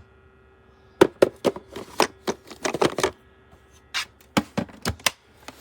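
A quick, irregular run of clicks and knocks in two bursts, the first about a second in and the second about four seconds in, over a faint steady hum.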